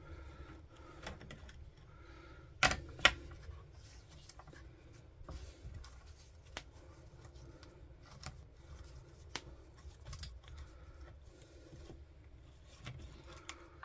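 Faint metallic clicks and scraping of a hand-turned socket driver undoing the small 8mm nuts on a petrol strimmer's carburettor housing, with two sharper clicks about three seconds in.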